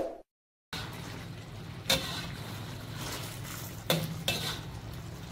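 The tail of a bell-like ding right at the start, then a steady low hum and hiss of background noise with three short clicks or knocks, one about two seconds in and two close together around four seconds in.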